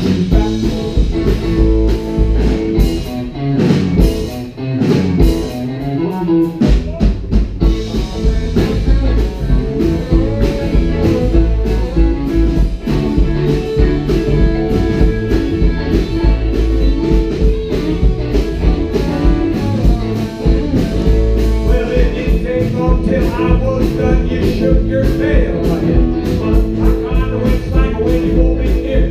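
Live rockabilly band playing loud: electric guitars, electric bass and a drum kit.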